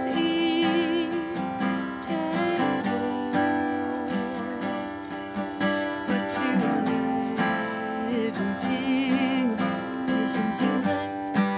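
Acoustic guitar strummed, with a woman singing over it in long held notes with vibrato.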